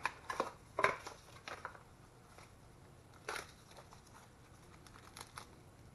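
Small cardboard accessory box being handled and opened, with scattered light clicks, scrapes and rustles of packaging, the clearest about a second in and again after about three seconds.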